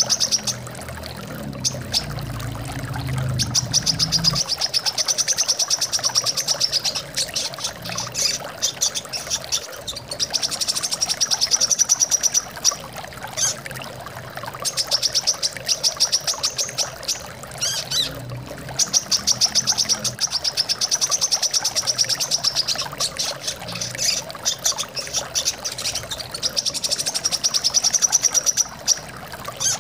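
Brown-throated sunbird (kolibri kelapa) singing fast, high trills in phrases of two to three seconds, repeated every few seconds, over a steady rush of flowing water.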